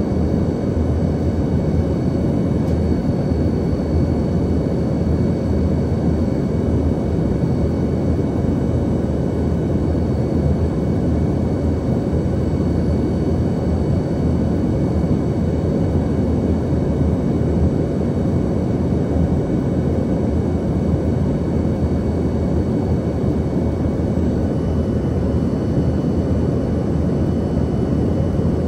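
Steady cabin noise inside an Embraer ERJ-145: the low roar of its rear-mounted Rolls-Royce AE 3007 turbofans, with several thin, steady high whine tones above it.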